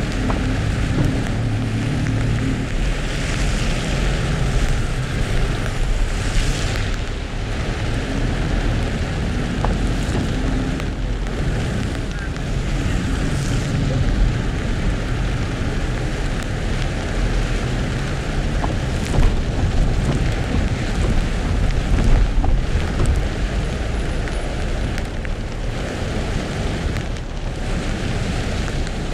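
Car driving in the rain, recorded by a dashcam: a steady low rumble of engine and tyres on the wet road under an even hiss of rain.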